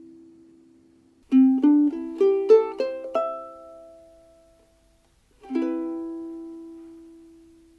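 Sumi UK-GT3M soprano ukulele, a mahogany-bodied replica of Gibson's 1920s Style 3, played solo. A quick run of plucked single notes climbs in pitch about a second in, then a final chord is struck and left to ring out and fade.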